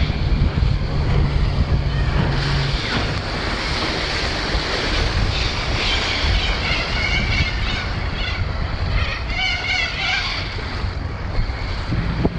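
Wind buffeting the microphone over choppy water, with a small boat's outboard motor running as an aluminium runabout passes close. A steady engine hum dies away about two and a half seconds in.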